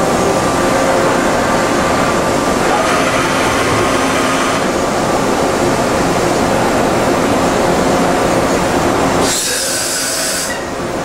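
Okuma MC-50H CNC horizontal machining center running on a dry cycle amid plant machinery noise: a loud steady mechanical din with several steady tones. About nine seconds in, a hiss lasts just over a second.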